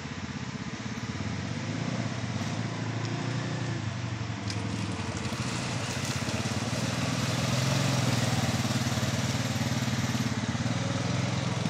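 2017 Honda 420 two-wheel-drive ATV engine running steadily as the quad wades through a shallow mud hole, getting louder in the second half as it climbs out up the bank.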